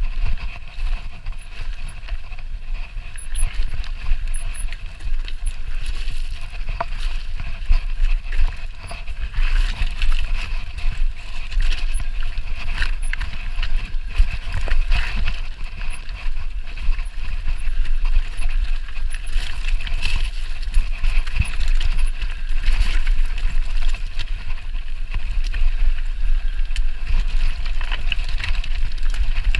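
Mountain bike clattering down a rocky trail: tyres grinding over loose stones and the bike knocking over rocks, with wind buffeting the microphone in a steady low rumble.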